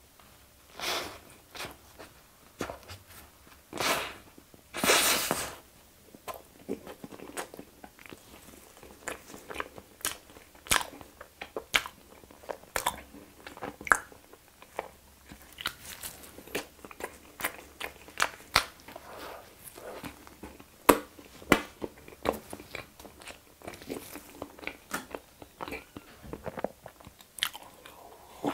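Close-miked biting and chewing of chocolate-cream-filled cornet bread: a few louder, longer sounds in the first five seconds, then many short wet mouth clicks and smacks as the bread is chewed.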